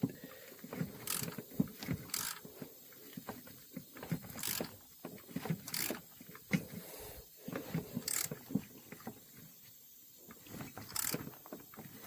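Hand tools working a thread tap into the aluminum timing chain cover: irregular small metallic clicks and scrapes, with a handful of sharper clicks spread through.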